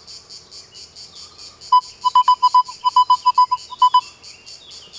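Nokta Triple Score metal detector sounding its target tone as a coin is passed over the search coil: a quick string of about a dozen short beeps, all at one pitch, starting a little under two seconds in and lasting about two seconds.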